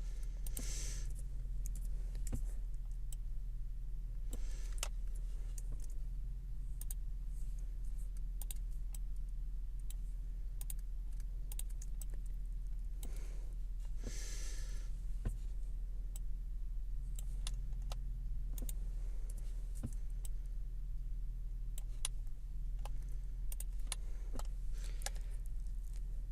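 Scattered clicks and taps of a computer keyboard and mouse, with a steady low hum underneath. There are two brief soft rushes of noise, about a second in and again about halfway through.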